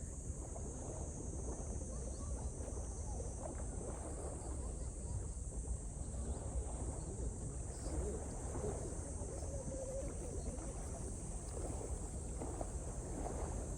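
Wind rumbling on the microphone, over a steady high hiss.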